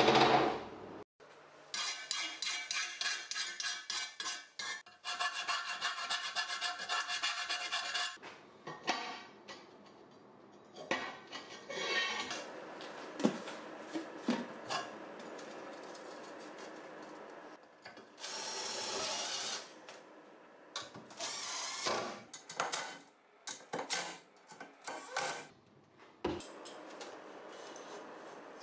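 Hand work on a steel box on a metal workbench: rapid back-and-forth rubbing and scraping strokes for several seconds, then scattered handling knocks and scrapes.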